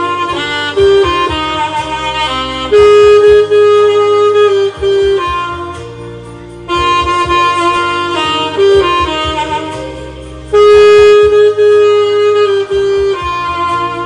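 Saxophone playing a melody with long held notes over a steady low accompaniment; the same phrase comes round twice.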